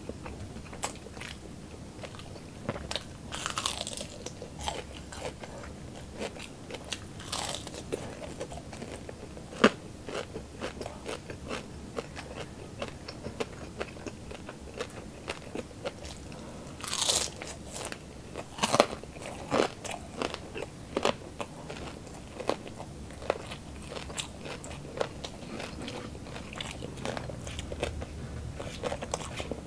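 Close-up crunching and chewing of chicharon bulaklak, crispy deep-fried pork intestine: a run of crisp crackles and clicks with louder crunchy bites every few seconds, the loudest about 17 seconds in.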